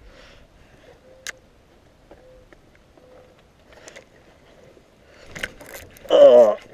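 Spinning rod and reel being worked, with faint ticks and a sharp click about a second in. Just before the end, a short, loud vocal exclamation as the rod bends with a fish on.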